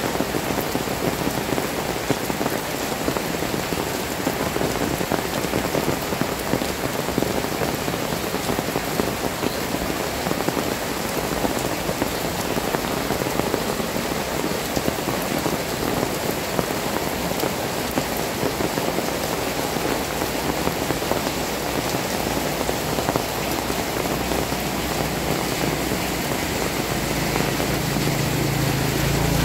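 Heavy rain pouring steadily onto a wet paved street, a dense, even hiss of countless drops. Near the end a motorbike engine comes in low and grows louder as it draws near.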